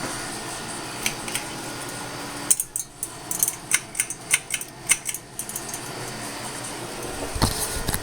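CEI GE Vent ceiling fan running with a steady buzzing hum. Through the middle a series of about a dozen sharp metallic clicks sounds, and a low thump comes near the end.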